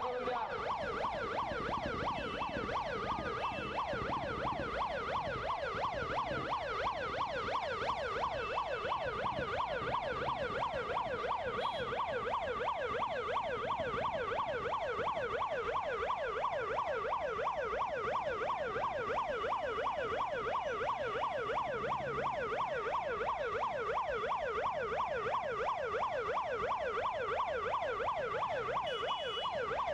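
Electronic siren yelping: a fast wail whose pitch sweeps over and over at a rapid, even rate.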